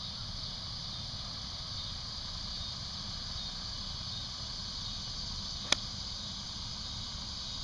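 A single sharp click about five and a half seconds in, a sand wedge striking a golf ball on a short approach shot, over a steady chirring of insects.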